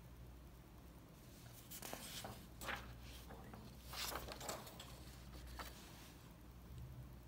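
Paper pages of a printed booklet being turned by hand: a brief rustle about two seconds in and another about four seconds in, with a smaller one shortly after, over a faint low hum.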